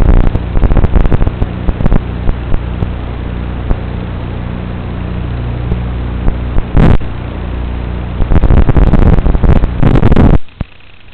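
Small 2-inch FPV quadcopter's brushless motors buzzing, with repeated loud blasts of wind and prop wash on the microphone. The sound cuts off abruptly about ten seconds in, leaving a faint hiss.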